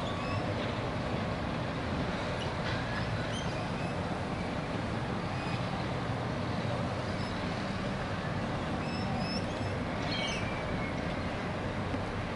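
A steady distant rumble of city and harbour background noise, with scattered short, high chirps from rainbow lorikeets.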